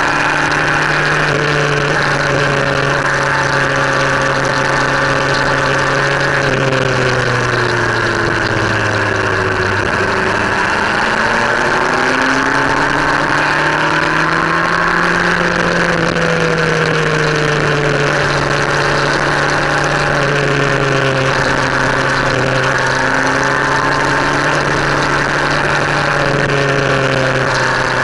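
Motorcycle engine running under way, heard from on board over a steady rush of wind and road noise. Its pitch holds, drops slowly as the bike eases off, climbs again as it pulls away, then holds steady.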